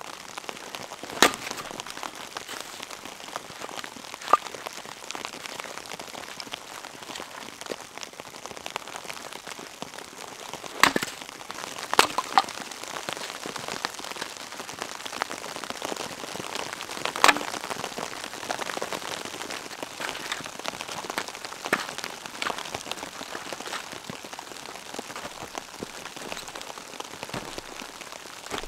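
A steady patter of heavy, wet falling snow landing on tent fabric and the ground around it. It is broken by a few sharp knocks, the loudest about a second in, around four seconds in, twice near the middle and once past halfway.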